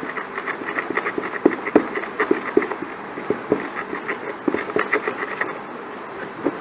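Thick wooden stick stirring plaster paste in a plastic tub, knocking and scraping against the sides in quick irregular taps, several a second, thinning out near the end. The plaster is being worked into a glue-and-water mix to thicken it into a paste.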